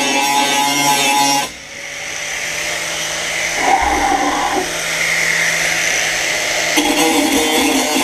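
Angle grinder grinding the edge of a thick steel plate. About a second and a half in, the cutting sound drops away and a thinner, steady whine builds back up; near the end, the full grinding sound returns.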